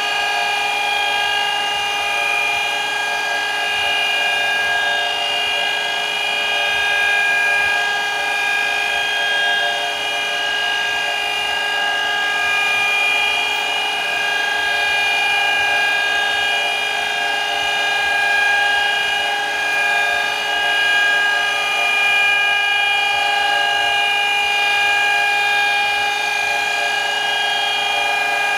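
Surface grinder running with a steady whine as its wheel lightly grinds the hardened 60-degree point of a Royal lathe live center, turned slowly by hand in a spin jig.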